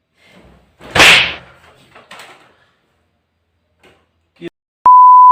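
A sudden loud rushing burst about a second in, then a few faint sounds and two small clicks. Near the end a steady, very loud electronic beep tone begins.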